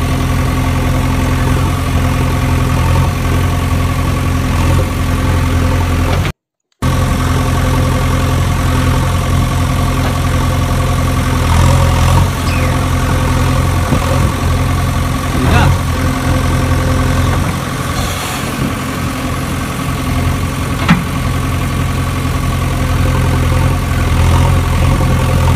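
Steady engine idling hum that cuts out briefly about six seconds in, with a few short scrapes and knocks over it.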